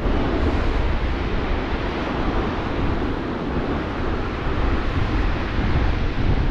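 Wind buffeting the microphone in a steady, deep rush, with surf on the shore behind it.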